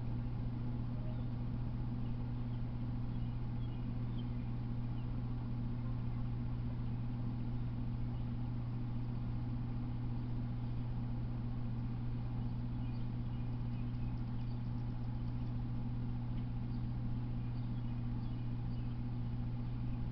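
A steady low hum, with faint short bird chirps scattered through it, more of them in the second half.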